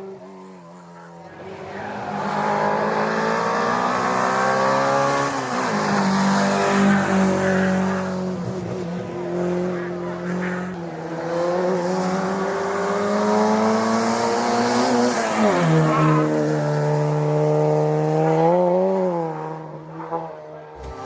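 Historic racing car's engine at full throttle, revs climbing and then dropping sharply at gear changes, twice, as the car accelerates past.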